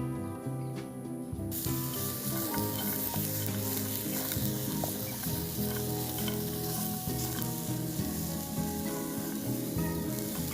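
Food frying and sizzling in a pan, the sizzle cutting in suddenly about a second and a half in and then running steadily, over background music.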